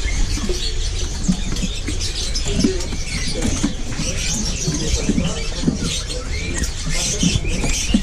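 Many small caged songbirds chirping at once in a dense, overlapping twitter, mixed with short scratching and fluttering sounds from the cages.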